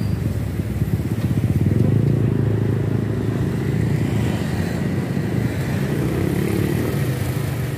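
Steady low rumble of a motorcycle engine idling close by, running evenly without revving.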